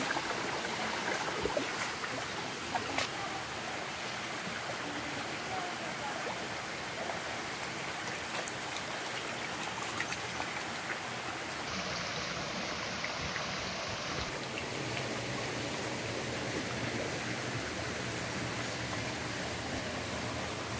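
Shallow jungle stream running steadily over rocks, with a few sharp splashes of boots wading through the water in the first seconds.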